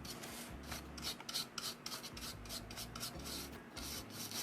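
Paintbrush bristles brushing paint onto a tray in short, repeated strokes.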